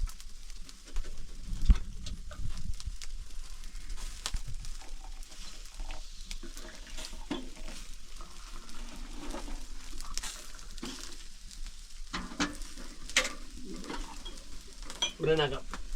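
Food sizzling as it fries in a pan, with frequent small clicks and scrapes of a utensil stirring it.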